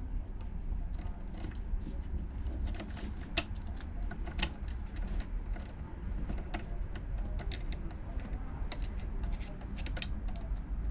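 Small scattered metallic clicks and rattles as a 240-volt receptacle and its wires are handled and a screwdriver works the terminal screws, over a steady low hum.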